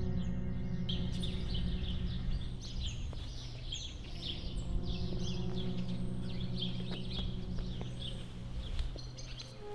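Small birds chirping over a low, steady background music drone.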